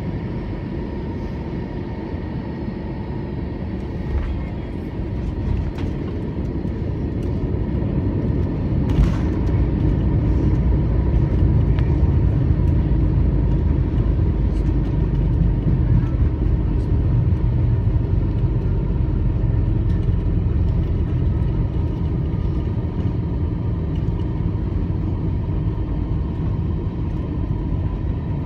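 Cabin noise of an Airbus A321-200 rolling on the ground after landing: a steady low rumble of engines and wheels with a thin engine whine. The rumble grows louder about a third of the way in and stays up, with one sharp click near that point.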